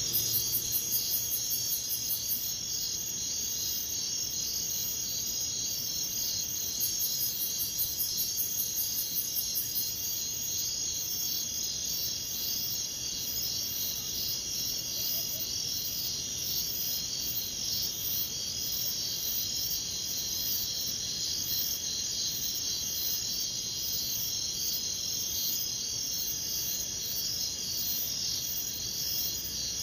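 Night-time insect chorus: a steady, dense high chirring throughout. Twice, for a few seconds each, a second, higher insect call joins in, pulsing about four to five times a second.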